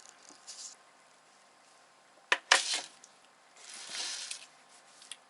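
Metal kitchenware being handled: two sharp clinks in quick succession a little over two seconds in, then a short scraping sound and a light click near the end.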